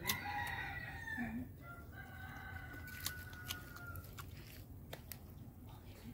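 A rooster crowing once, the call ending in a long drawn-out note that stops about four seconds in.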